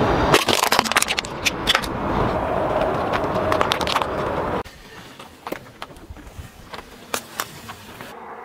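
Car tyre rolling over and crushing objects on asphalt, an aluminium drink can and then sticks of chalk: a loud stretch of crunching and crackling for about the first four and a half seconds, then quieter, scattered sharp cracks.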